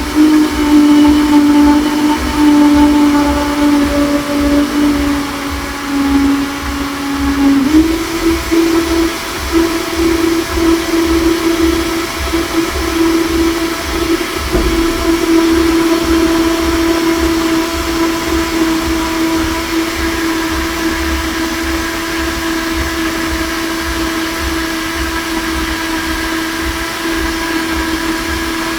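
Electric countertop blender running, blending bananas with yogurt and ice cream into a smoothie. Its motor hum steps up in pitch about eight seconds in, then holds steady.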